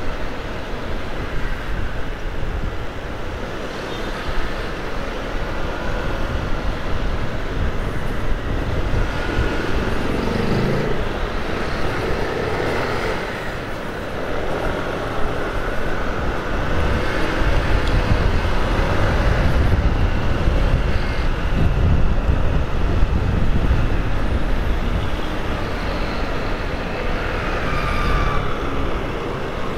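Road traffic heard while riding along a busy city avenue: a continuous rumble of engines, tyres and wind, with heavier vehicles such as trucks or buses close by. An engine note rises in pitch about ten seconds in, and the low rumble is heaviest around twenty seconds in.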